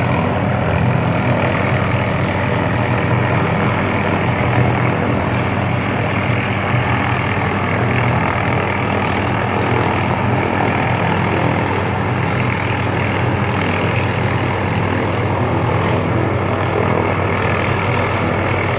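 Helicopter running steadily overhead, a continuous engine and rotor drone that holds the same level throughout.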